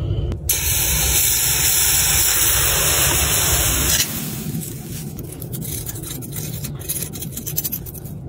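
Freshly poured molten metal setting in a sand mould: a low rumble, then a loud steady hiss from about half a second in that cuts off suddenly near the middle, followed by quieter scattered small crackles and ticks.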